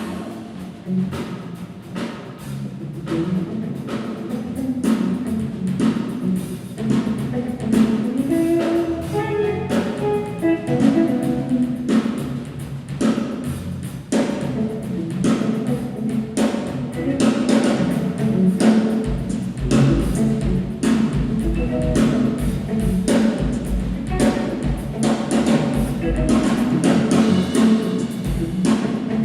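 Drum kit played non-stop in a fast, busy pattern of rapid strokes, with pitched notes sounding underneath. A heavy deep bass comes in about two-thirds of the way through.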